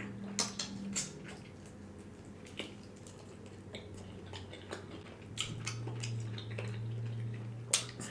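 Eating with a utensil: scattered light clicks and taps of cutlery against a dish, about a dozen over several seconds and irregularly spaced, over a faint steady low hum.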